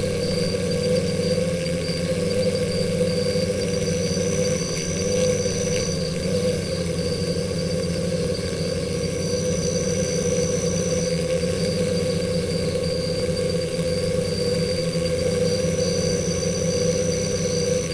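Stingless bees buzzing at their nest entrance: a steady low hum. A faint fast high trill sits behind it, and a high thin tone comes in three times for about two seconds each.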